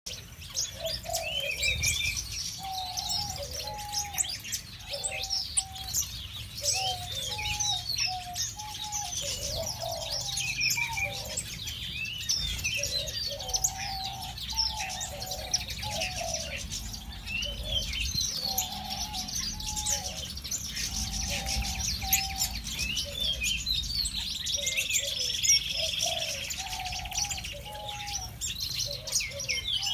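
Many small aviary finches chirping and tweeting without pause, with a lower, steady run of short calls beneath the high chirps.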